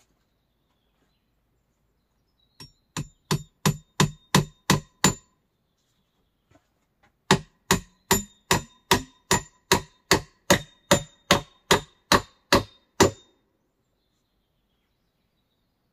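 Hammer blows ringing on metal, about three a second, in two runs: about eight blows, the first few growing louder, then after a short pause about seventeen more.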